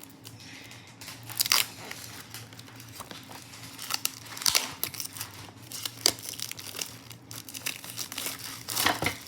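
Plastic wrap being torn and peeled off a speedcube box, crinkling unevenly with sharp crackles, the loudest about a second and a half in and just before the end.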